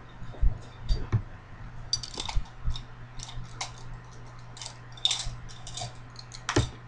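Scattered light clicks and taps of makeup tools being handled, brushes and compacts knocking and clicking, several a second, over a steady low hum.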